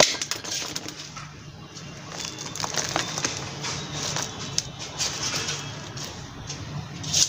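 Hands pressing and working loose potting mix around a fern's roots in a plastic tub: irregular crunching and crackling, with a sharp click right at the start and another near the end.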